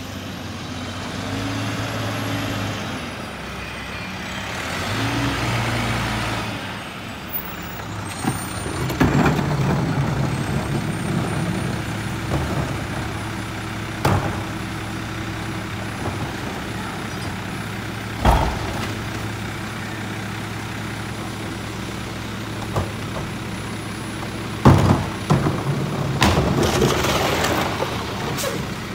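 Mack MRU rear-loader garbage truck: the engine runs with a changing tone as it pulls up, then settles into a steady idle hum. Several sharp bangs come as a wheeled cart is tipped and knocked against the rear hopper, and a loud air-brake hiss sounds near the end.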